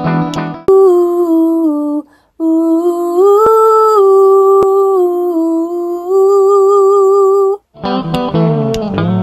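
A woman singing alone, unaccompanied, in long held notes that step up and down in pitch, with a short break about two seconds in: a studio vocal take. Guitar background music plays at the start and comes back near the end.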